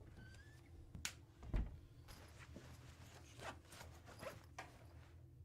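Faint, scattered rustles and small clicks, with one dull thump about one and a half seconds in.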